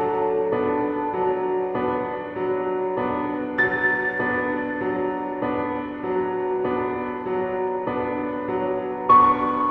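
Background music: soft piano chords changing about once a second.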